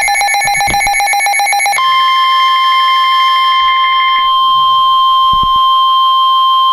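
A NOAA Weather Radio receiver sounding an alert: a rapid pulsing, buzzing tone pattern, then about two seconds in the steady 1050 Hz warning alarm tone, which holds until near the end. The tone signals that a warning, here a severe thunderstorm warning, is about to be broadcast.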